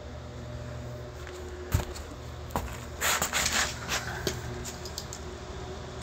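A steady low mechanical hum, with two sharp clicks before the middle and a short burst of rustling noise about three seconds in.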